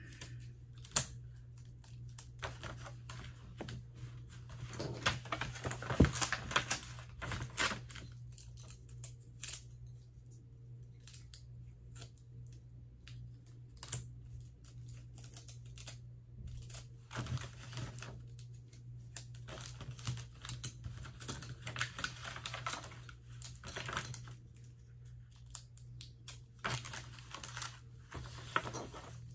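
Irregular light clicks, taps and paper rustles from small sublimation dog tags and their paper sheets being handled and peeled on a worktable, over a steady low hum.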